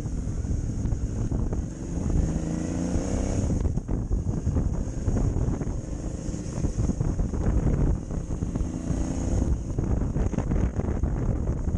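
Motorcycle engine running under way with wind rushing over the microphone. The engine note rises twice as the bike accelerates, each time breaking off briefly as it changes gear, about four seconds in and again near ten seconds.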